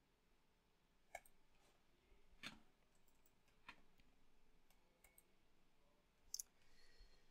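Faint computer mouse clicks, a handful of single clicks a second or more apart, over near-silent room tone.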